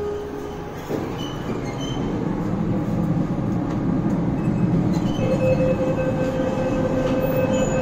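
KONE TMS passenger lift's machinery running: a steady low rumble that slowly builds, joined about five seconds in by a steady hum and a faint high tone as the doors close and the car sets off.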